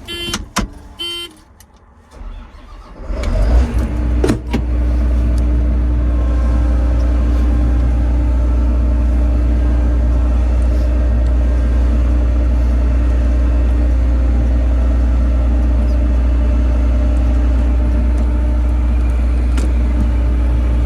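A couple of short beeps, then an engine cranks and starts about three seconds in and settles into a steady run with a strong low hum.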